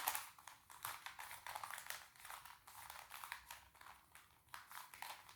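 A new Weilong Square-1 puzzle being turned by hand: quick, irregular plastic clicks and scratchy clacks as its layers twist and slice, several a second. It has the scratchy feel of a puzzle fresh out of the box.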